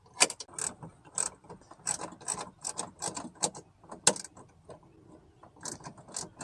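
Socket ratchet clicking in quick, uneven strokes as a bolt holding the power window motor is backed out, with a pause about two thirds of the way through.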